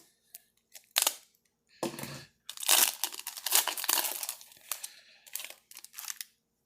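A trading-card pack's foil wrapper being torn open and crinkled in the hands, as irregular crackling bursts that are densest over the last few seconds.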